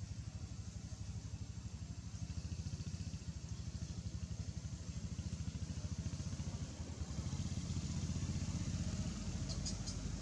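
A steady, low, rapidly pulsing motor rumble, like a small engine idling, getting a little louder after about seven seconds. A few faint high clicks come near the end.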